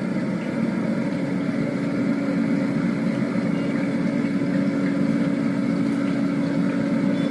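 Steady mechanical hum holding one low pitch, like an engine or motor running at idle.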